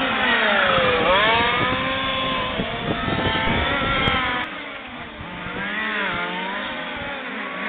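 Several 1:5-scale RC racing trucks' small two-stroke petrol engines buzzing as they race round the track. Their pitch rises and falls with throttle changes and pass-bys, and the whole gets quieter from about four and a half seconds in.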